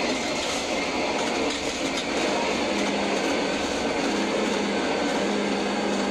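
Ship-to-shore container crane's hoist machinery running as the spreader lowers a container down onto a truck chassis, heard from the operator's cab: a steady mechanical clatter and hiss, with a low hum coming and going from about three seconds in.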